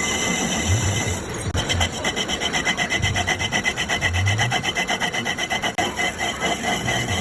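Metal being cut in a workshop: a fast, even scraping rhythm of about six strokes a second over a steady machine tone.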